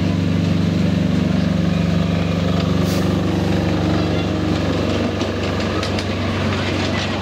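Small diesel engine of a miniature-railway locomotive running steadily, its note fading from about halfway as the train pulls away. Light clicking of the wheels over the track joins toward the end.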